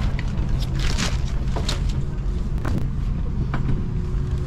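Airbus A330 economy cabin ambience: a steady low hum from the cabin ventilation, with scattered knocks, clicks and clothing rustles from passengers moving about in the aisle.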